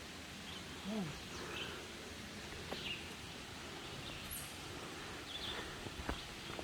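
Small birds chirping, a short call about every second, over the steady rush of a stream and distant waterfall. A few footsteps on the trail near the end.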